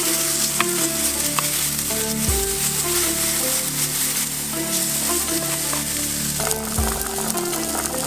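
Diced bacon sizzling and frying in a nonstick pan while a spatula stirs and pushes it around.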